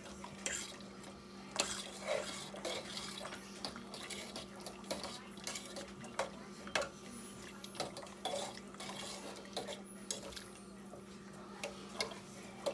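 A spoon stirring chunky stew in a stainless steel pot, knocking and scraping against the pot's sides in irregular clinks, over a steady low hum.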